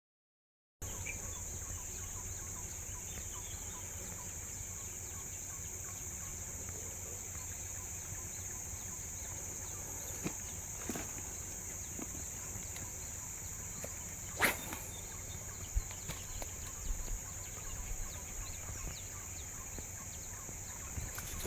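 Forest ambience dominated by a steady, high-pitched insect drone, likely cicadas, with a low steady rumble and a few faint clicks. The sound drops out completely for under a second at the start.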